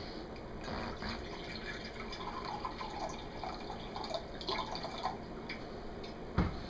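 Spring water poured from a glass jug into a glass measuring cup, filling with soft gurgling in the middle seconds, and a sharp knock on the counter near the end.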